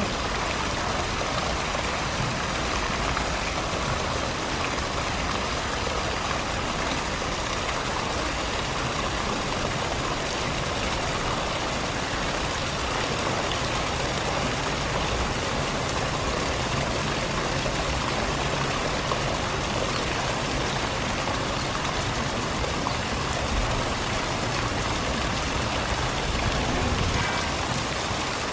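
Steady patter and hiss of water drops falling all over a pool's surface, like rain on water.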